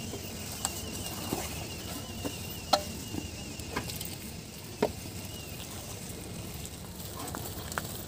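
A hand mixing thick besan (gram flour) batter in a steel bowl: soft wet stirring with a few sharp clicks against the bowl, the loudest nearly three seconds in.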